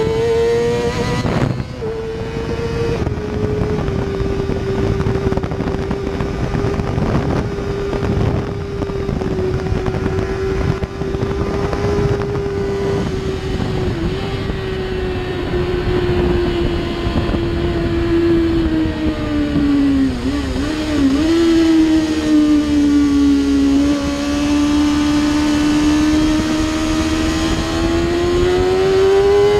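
2007 Kawasaki ZX-6R's inline-four engine through an Akrapovic Evolution exhaust, running hard at high revs on track. The pitch holds fairly steady, drops with a couple of quick dips about two-thirds of the way in, then climbs again near the end. Wind buffets the microphone throughout.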